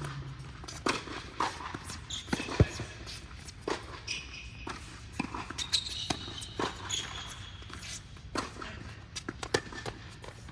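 Tennis balls being struck and bouncing in an irregular series of sharp knocks, with a few short high squeaks between them.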